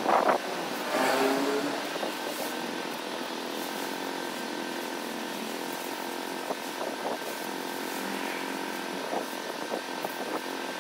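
A steady mechanical hum throughout, with a loud flap of nylon tent fabric being shaken out right at the start and a few light rustles and clicks later as the tent is spread on the ground.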